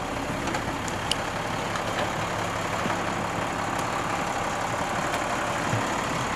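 A heavy military truck's diesel engine idling steadily, with a few faint clicks over it.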